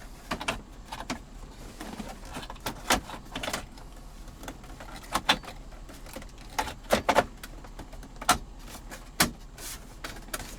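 Plastic console trim pieces clicking and knocking as they are fitted and snapped back into place, in irregular single clicks and short pairs.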